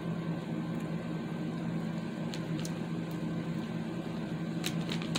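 Steady low hum from a running room appliance, with a few light clicks in the middle and a short cluster of clicks and crackles near the end.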